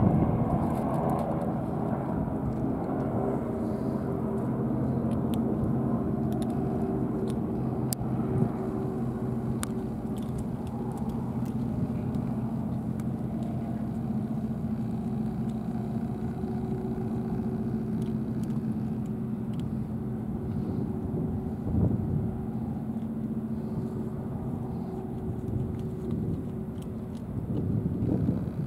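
An engine running steadily, a low drone holding one pitch, which fades out near the end.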